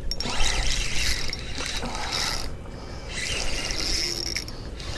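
Fishing reel whirring and clicking as a hooked fish is fought, in spurts with short pauses.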